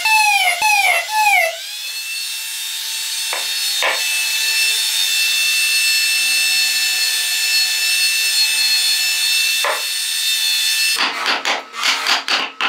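Handheld rotary tool with a fine bit drilling dots into a carved wooden wheel: its whine dips in pitch and recovers with each press for the first second or so, then runs as a steady high whine with a hiss. About eleven seconds in it gives way to a quick, regular run of knocks as a chisel works the wooden wheel.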